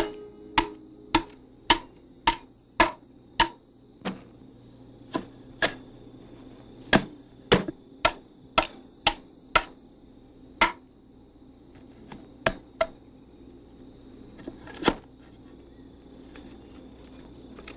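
Sharp blows of a tool chopping into timber as a log is hewn: a steady run of six strikes, about two a second, then scattered strikes, some in quick pairs, the last about fifteen seconds in.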